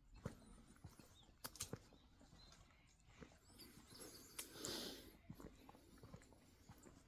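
Border collie's claws clicking and tapping on a hard floor as it moves about. About four and a half seconds in, a brief high, breathy whistle from the excited dog.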